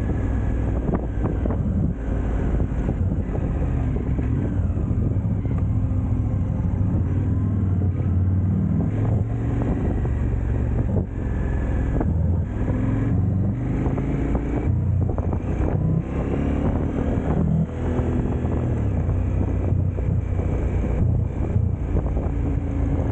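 KTM twin-cylinder motorcycle engine running under way, its pitch rising and falling repeatedly with throttle and gear changes, with wind noise on the microphone.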